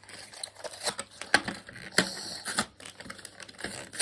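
Toy packaging being handled: irregular clicks and taps of plastic and cardboard, with a few louder knocks among them.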